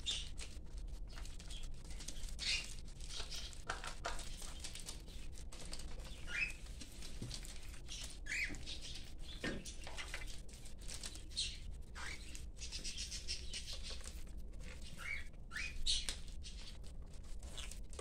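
Cockatiels feeding on spinach leaves over newspaper: scattered pecking, rustling and scuffling, with a few brief chirps and a low steady hum underneath.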